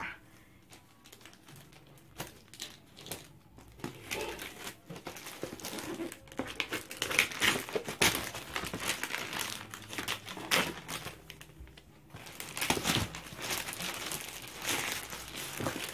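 Plastic parcel wrapping crinkling and tearing as a package is cut open with scissors and unwrapped from a shoebox: a run of irregular crackles and rustles, sparse at first and busier and louder after several seconds.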